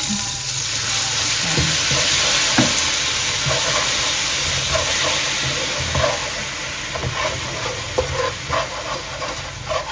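Water hitting hot caramelizing sugar in a nonstick wok, setting off a loud sizzling hiss that slowly dies down as the syrup bubbles, with a spatula stirring and scraping against the pan and a few sharp clicks. This is the water going in to turn the caramel into a braising sauce.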